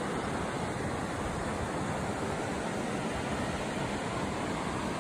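Fast mountain river running over rapids: a steady rush of water.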